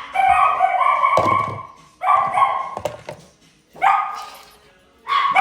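Dogs barking in repeated bursts, about one burst every two seconds, with a single thud about a second in.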